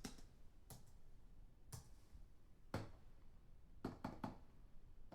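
Computer keyboard keys being typed, faint and at a distance: single key clicks about once a second, then three in quick succession about four seconds in.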